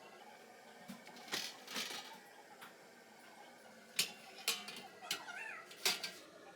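Several sharp clacks and knocks of hard kitchen items being handled, with a short wavering squeal about five seconds in.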